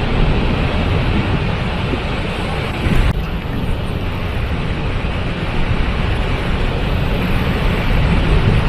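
Steady rush of a waterfall: water falling and splashing in a dense, even noise with no pauses.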